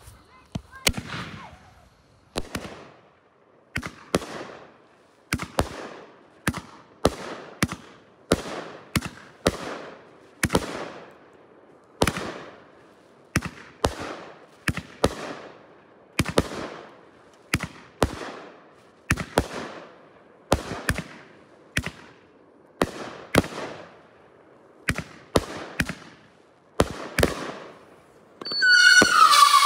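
A 500 g 'Out Of Nowhere' girandola fireworks cake firing its shots: a steady string of sharp launch thumps and aerial bursts, about one a second, each trailing off. Near the end the girandola wheel ignites with a loud whistle that falls in pitch.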